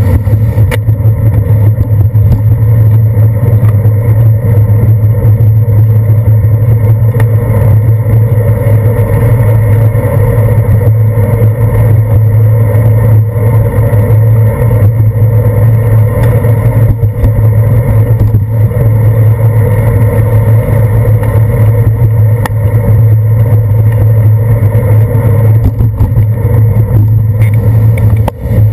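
Loud, steady rumble of a bicycle riding over wet pavement, picked up through a handlebar-mounted GoPro: road vibration and wind noise with a constant low hum, mixed with surrounding car traffic.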